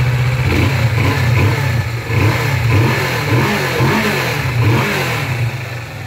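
Kawasaki Vulcan S 650's parallel-twin engine, breathing through its stock exhaust, revved from idle in a series of quick blips. The pitch rises and falls again and again.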